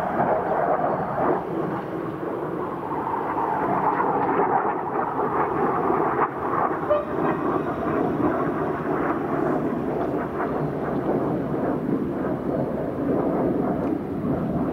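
Train passing along the track: a steady, fairly loud noise of wheels on the rails with no break.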